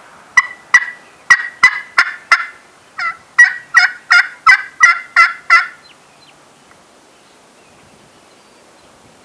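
Turkey yelping: a run of about fourteen sharp, loud yelps, six then a short pause and eight more, each note dropping in pitch.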